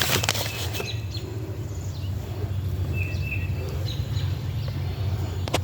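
Steady low rumble of background noise, with a few short bird chirps in the middle and a couple of sharp clicks, one at the start and one near the end.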